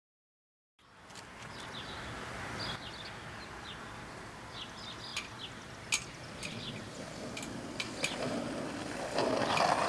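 Outdoor ambience after a second of silence: a steady background hiss with scattered short bird chirps and a few faint clicks, the noise growing louder near the end.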